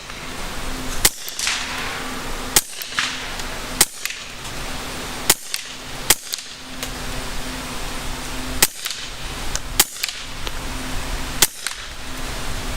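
Suppressed pistol firing about eight shots at an uneven pace, one to two seconds apart. Each shot is a sharp, short crack.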